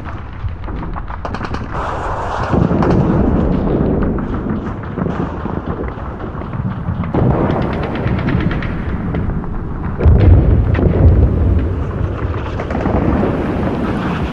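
Battle sound effects: long runs of rapid rifle and machine-gun fire, broken by heavy explosions about two seconds in and again about ten seconds in, the second the loudest.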